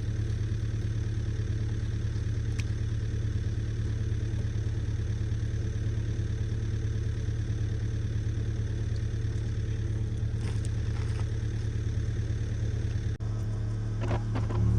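Engine running at a steady, idle-like speed, with a few faint clanks. About a second and a half before the end it drops out for an instant and a lower engine note with knocks follows.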